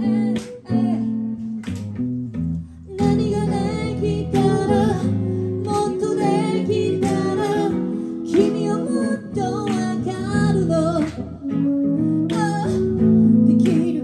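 Live acoustic pop song: a woman singing over a strummed semi-acoustic guitar, the voice coming in about three seconds in after a short guitar passage.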